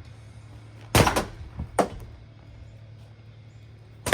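Sharp impacts as an object is swung into a running ceiling fan: a loud crack about a second in, a second one just under a second later, and another loud hit near the end, over a steady low hum.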